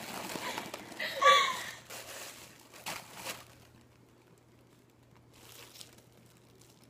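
Foil balloon crinkling as it is handled, mostly in the first three seconds or so, with a brief voice sound about a second in and a faint rustle again later.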